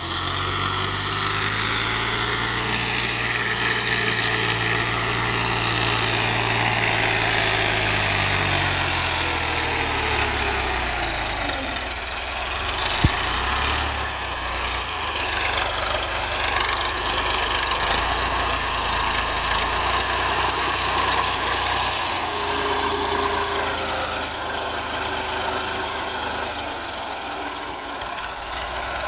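Massey Ferguson 240 tractor's diesel engine running while pulling a trolley loaded with branches over a muddy track. The engine note drops in pitch about ten seconds in, then settles into a lower, steady hum, with one sharp click about halfway through.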